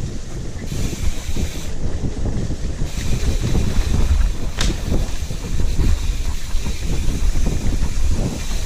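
Heavy wind buffeting the microphone: a loud, uneven low rumble with a rushing hiss that comes and goes, and one brief sharp high sound about four and a half seconds in.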